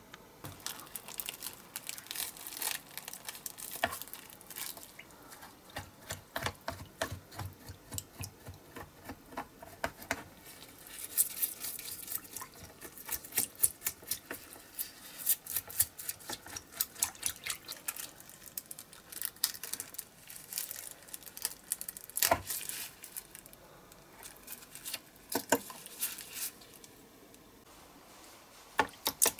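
A toothbrush scrubbing a diecast metal toy car body in a shallow plastic tray of liquid, stripping off the softened paint: quick runs of short, scratchy brush strokes with pauses between, and a few sharper taps of the body against the tray.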